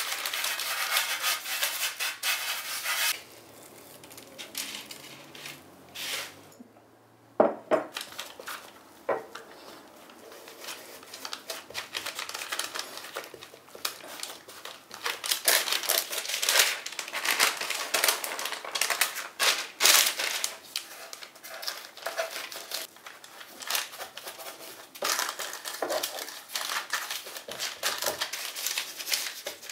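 Hands patting and pressing scone dough flat on a floured, parchment-lined metal baking tray: many soft irregular pats with rustling of the baking paper and occasional knocks of the tray. A loud rustling scrape fills the first three seconds, and there is a sharp knock about seven seconds in.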